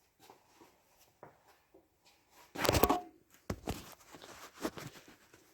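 Hand work on a diesel engine being assembled: scattered light clicks, then a louder clatter about two and a half seconds in, followed by a few sharp knocks of tools and parts.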